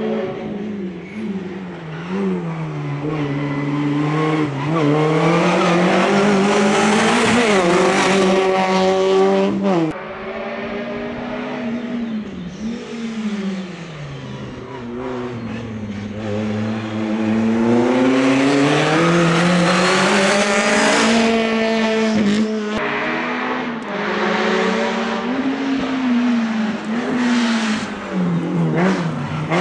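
Competition cars' engines revving hard and lifting off again and again as they weave through a cone slalom. The engine note climbs and falls in pitch many times and swells loudest twice, as a car comes near.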